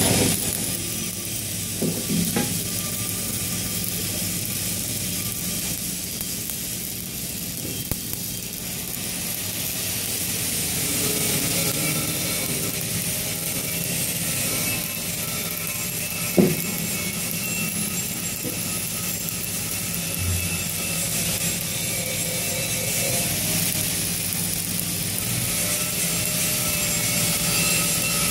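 Electric arc welding: the arc's steady crackling hiss over a low steady hum, with an occasional sharp pop.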